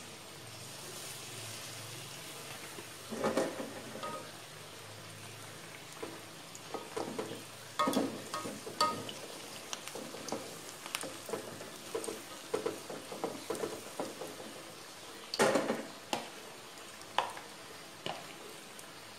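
Battered banana pieces sizzling in hot oil in a wok, a steady hiss. Over it a spoon and a wooden spatula knock and scrape against the mixing bowl and the wok again and again, the loudest knocks about three, eight and fifteen seconds in.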